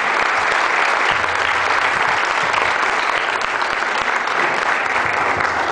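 Audience applauding: dense, steady clapping that begins to thin near the end.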